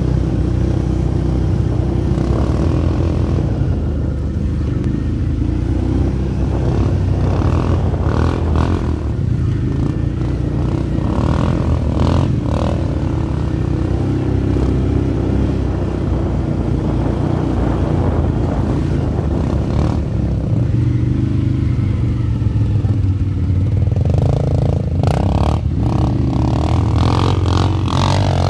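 Quad bike (ATV) engines running and revving up and down on a snowy trail, with a run of knocks and clatter near the end.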